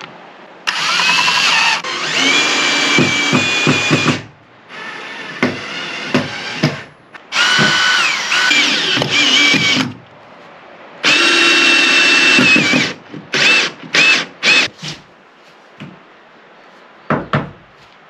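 Power drill run in repeated bursts: four runs of a couple of seconds, each opening with a rising whine that then holds steady, followed by a quick series of short trigger blips and one last brief one near the end.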